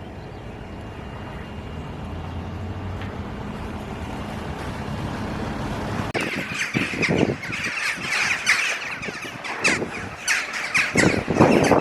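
A steady low hum slowly grows louder. From about halfway through, many harsh bird calls come in quick, irregular succession.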